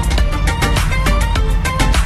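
Background music: a fast, steady beat with short melodic notes over a heavy bass.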